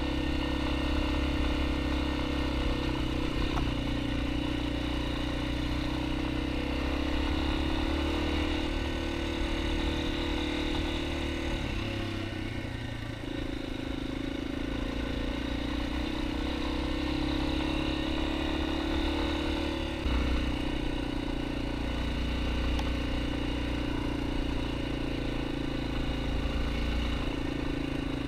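Yamaha XT250's single-cylinder four-stroke engine running steadily under way, with a brief ease-off about twelve seconds in before it picks up again.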